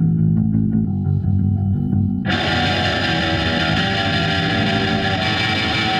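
Rock theme music led by a distorted electric guitar and bass riff. A fuller band sound comes in about two seconds in.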